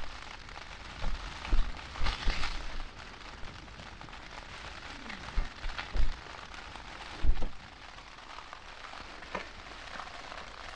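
Steady rain on the fabric of a small single-skin Lanshan tent, heard from inside, with several dull knocks a second or so apart near the start and two more about halfway through.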